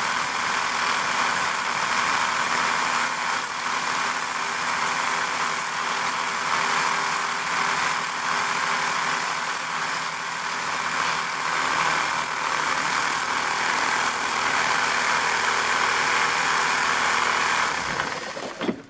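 Air pump blowing a steady rushing jet of air through a ratchet wrench's drive mechanism to clear dust out of it, with a faint steady hum underneath. The air cuts off suddenly just before the end.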